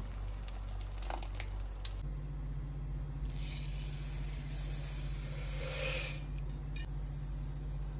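Dry bamboo rice poured from a packet into a glass bowl, a hissing rattle of grains lasting about three seconds. Before it come a few light clicks of a ladle stirring in a pan, over a steady low hum.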